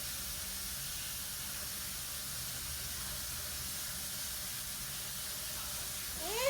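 Steady, even hiss of background noise, unchanging throughout. A voice begins right at the end.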